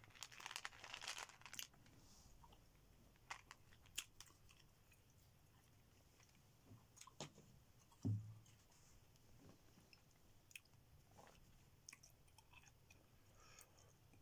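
Faint chewing gum sounds: soft, sparse mouth clicks and smacks, densest in the first second or two. A single dull bump comes about eight seconds in.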